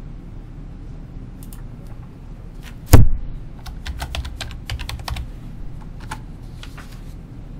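Typing on a computer keyboard: a single loud knock about three seconds in, then a quick run of keystrokes as a word is typed, and a few more clicks near the end.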